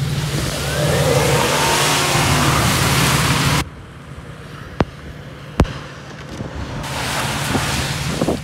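Ford F-150 pickup engine revving hard with its wheels spinning in mud. After about three and a half seconds the sound drops off suddenly, two sharp knocks follow, and the engine and spinning build up again near the end.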